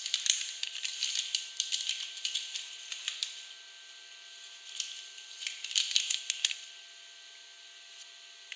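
Soap packaging being unwrapped by hand, crinkling and crackling in two spells. The second spell stops about six and a half seconds in.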